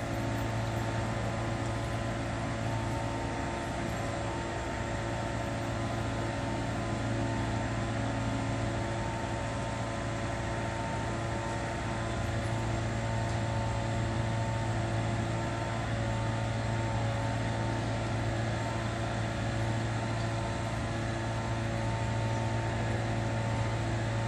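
Steady mechanical hum: an even low drone with a few steady higher tones over a haze of noise.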